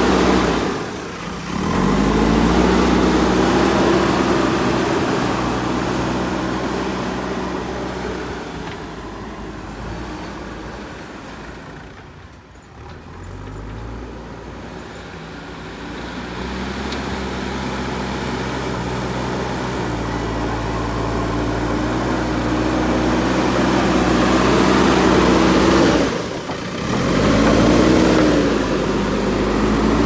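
JCB backhoe loader's diesel engine working under load as the front bucket pushes soil, its pitch rising and falling as the throttle changes. It grows fainter toward the middle as the machine moves off, then louder again as it comes back.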